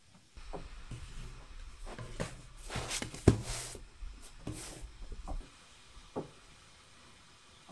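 Rolled dough and wooden utensils handled on a hot iron saj griddle: a series of wooden knocks and scrapes, the sharpest about three seconds in, with short bursts of hiss around it. The clatter dies away after about five seconds, leaving one last knock.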